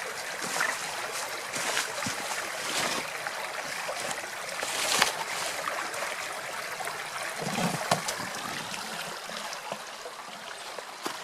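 Stream water flowing and trickling steadily, with small splashes.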